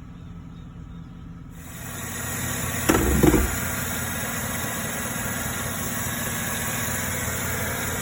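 2009 Chevy Silverado V8 engine idling steadily; about a second and a half in it gets louder and fuller, and about three seconds in there is a brief loud burst before the steady idle resumes.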